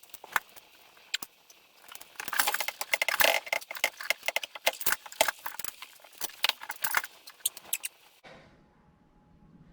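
Small metal hardware and hand tools clinking and rattling in a quick, irregular run of clicks, busiest in the middle. It stops abruptly near the end, leaving only a faint low hum.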